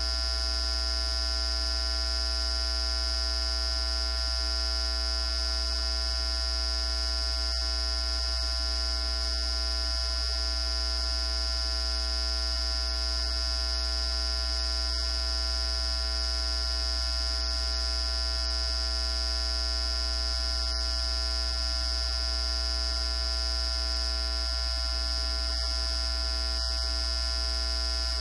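Steady electrical hum and buzz, made of many fixed tones: a strong low hum with a high whine on top.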